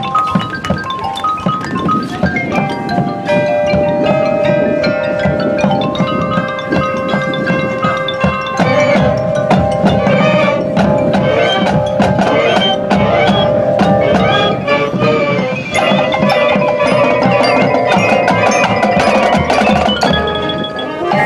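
High school marching band playing its field show, with mallet percussion such as glockenspiel and marimba and the drums standing out, and long held notes coming in about four seconds in.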